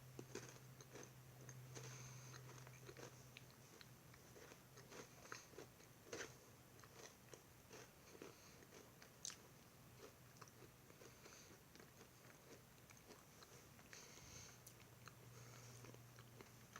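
Someone chewing a crunchy granola and almond butter cup: faint, irregular crunches with the mouth close to the microphone. A steady low hum sits underneath.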